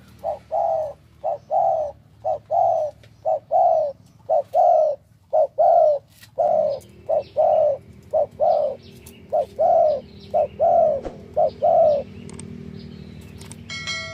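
Spotted doves (Thai-bred cu gáy) cooing in repeated phrases of short and longer notes for about twelve seconds. A low steady hum comes in about halfway through, and a short electronic chime sounds near the end.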